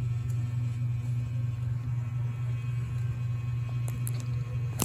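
Steady low hum, with one sharp click right at the end.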